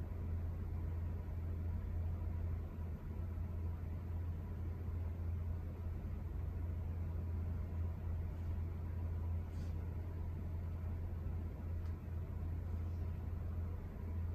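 Steady low hum of background noise, with a few faint soft ticks about ten and twelve seconds in.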